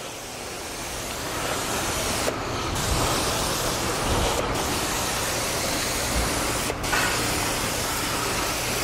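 Hand pump sprayer misting citrus pre-wash onto a car's paintwork and wheels: a steady hiss of spray that briefly breaks off a few times, with a low steady hum underneath.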